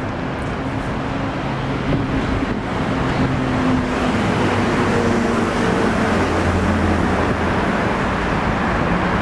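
City road traffic: motor vehicles running past in a steady rush, with low engine hums that change pitch, growing a little louder about three seconds in.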